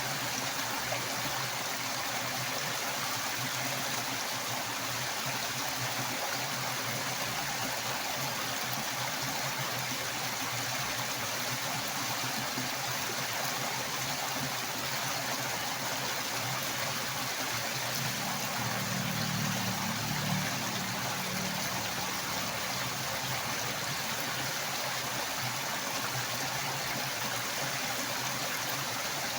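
Heavy, fast-flowing water rushing steadily, with a brief low hum about two-thirds of the way through.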